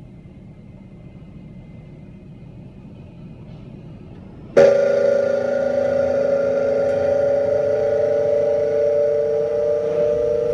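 Car wash air dryer blowers come on suddenly about halfway through and run with a loud, steady hum of several held tones over a rushing noise. Before that there is only a faint low rumble.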